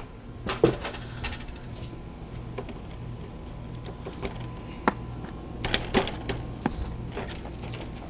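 Metal gate latch clicking and a lattice-topped gate knocking as it is unlatched and swung open. There are several sharp clicks, the loudest about half a second in and a cluster near six seconds, over a steady low hum.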